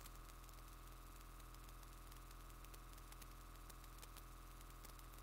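Near silence: a faint steady electrical hum and hiss from the sound system.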